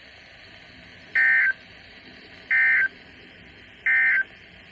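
Three short bursts of EAS digital data tones on NOAA Weather Radio: rapid two-pitch shrieking chirps about a third of a second each, roughly a second apart, over faint radio hiss. This is the End of Message code that closes the alert broadcast.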